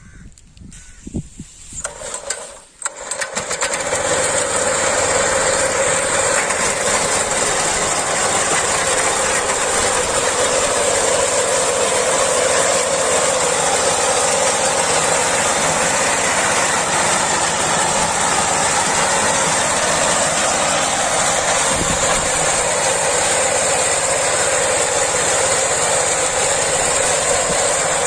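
Rice harvesting machine running: a loud, steady engine and machinery noise that begins about three seconds in and holds even.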